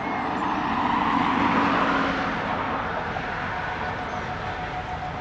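MÁV class 628 (Soviet M62 'Sergei') diesel locomotive approaching at low speed, its two-stroke V12 diesel running steadily, loudest about a second or two in. Just before the end a steady horn note starts sounding.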